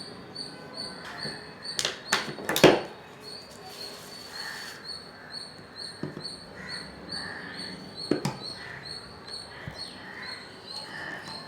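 High, regular chirping about three times a second, with a few sharp knocks and taps from working at the sculpture; the loudest knocks come about two and a half seconds in.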